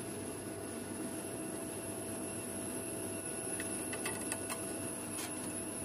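A few light metallic clicks and taps, several close together around four seconds in, as a steel bracket carrying bolted ball bearings is set against a cast-iron sewing machine frame, over a steady background hum.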